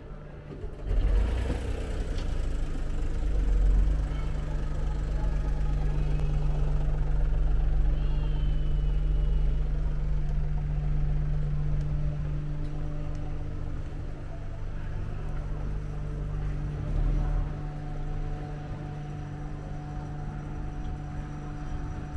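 A motor vehicle's engine running steadily at idle: a low hum with rumble that comes in about a second in and eases slightly later on.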